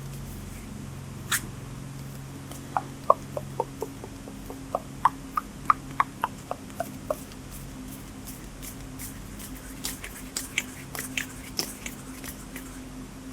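ASMR hand sounds close to the microphone: a run of quick little clicks and taps in the middle, then sharper, brighter clicks near the end, over a steady low hum.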